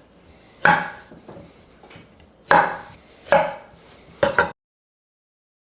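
A kitchen knife chopping radishes on a cutting board: about five separate, sharp knocks at an uneven pace. The sound cuts out abruptly to silence near the end.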